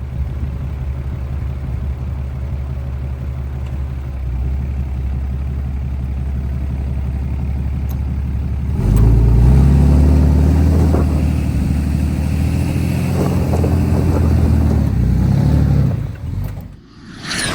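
Kubota tractor's diesel engine running steadily, then revved louder about nine seconds in, its pitch rising and falling, before it drops away. A short sweeping whoosh follows near the end.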